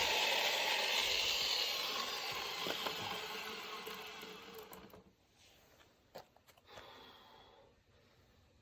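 Electric chainsaw winding down, its whine falling in pitch and fading out over about five seconds, followed by a few faint clicks.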